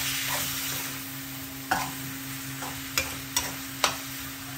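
Pork and fresh shrimp paste sautéing in a steel wok with a steady sizzle, stirred with a metal spatula that scrapes and clinks sharply against the pan several times.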